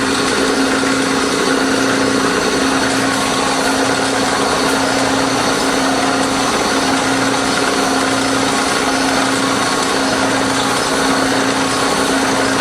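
Knee mill running steadily, its spindle turning an end mill held in an R8 collet, with a constant hum and no change in pitch.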